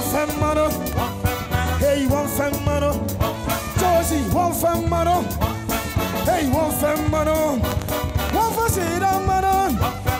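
Live band playing an upbeat gospel groove, with drum kit, congas, bass and a trumpet line over a steady beat.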